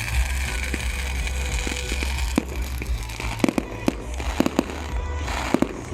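Fireworks salute going off: a run of sharp bangs and pops starting a couple of seconds in and coming faster toward the end, over background music.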